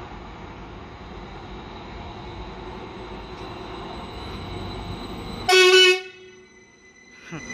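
A steady rumble that slowly grows louder, then a train horn gives one short, loud toot about five and a half seconds in, after which the sound cuts away.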